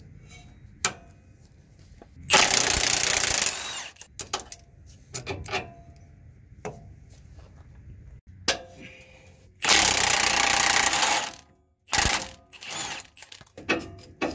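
Impact wrench run in two bursts of about one and a half seconds each, spinning the fasteners off a truck's front sway bar. Scattered clinks of tools and loose metal parts come between the bursts and near the end.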